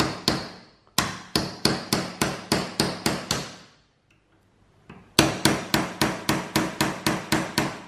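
Hammer striking a screwdriver used as a drift to knock a worn, loose bushing out of a combine harvester's guide cylinder, metal on metal. Two runs of quick, even blows, about three to four a second, with a pause of a second or so near the middle.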